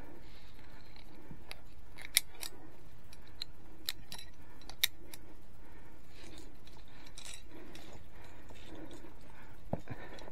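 Via ferrata lanyard carabiners clicking and clinking against the steel safety cable as they are handled and slid along it: a few sharp metallic clicks, the loudest about two and five seconds in.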